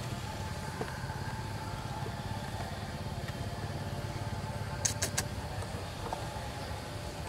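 Steady low hum of a motor vehicle engine running, with two short sharp clicks about five seconds in.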